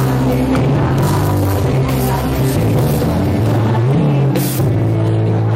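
Filipino rock band playing loud live rock music, with sustained chords holding under the band, recorded from inside the audience.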